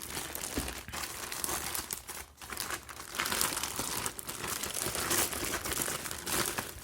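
Packaging crinkling and rustling in the hands, an irregular run of crackles and small clicks as the sealed package is handled before opening.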